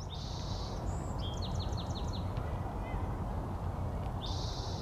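A songbird singing. A short buzzy phrase comes at the start, a quick run of six or so falling notes about a second in, and another buzzy phrase near the end, all over a steady low rumble.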